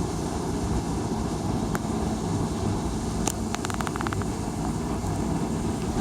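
Steady low rumble of an indoor building's ventilation system, with a short run of quick clicks about three and a half seconds in.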